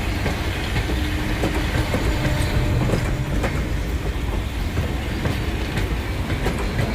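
Train running on rails: a steady low rumble with scattered clicks of the wheels over the track.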